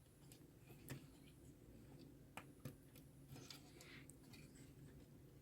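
Near silence broken by a few faint clicks and ticks, an IC chip being handled and pressed into its socket on a circuit board.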